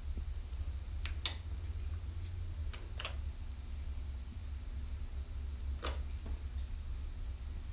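Sticky black magnetic slime made from glue, liquid starch and iron filings being kneaded and pulled by hand on a tabletop, giving a handful of short, sharp sticky clicks and pops as it pulls away from the fingers and surface. The slime is still sticky and needs more liquid starch. A steady low hum runs underneath.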